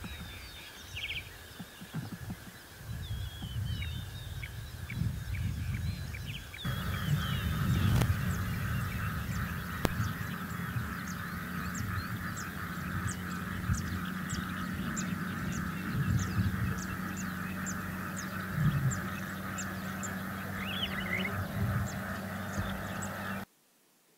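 Outdoor wildlife ambience with birds calling: short high chirps at first, then after a sudden change about seven seconds in, a steady buzzing hiss with rapid high ticks and occasional louder calls. It cuts off abruptly near the end.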